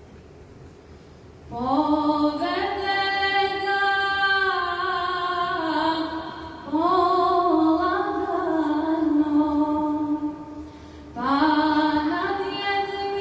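A woman singing a Bosnian Islamic devotional song solo in long, ornamented phrases with held, wavering notes. She comes in about a second and a half in and pauses briefly twice between phrases.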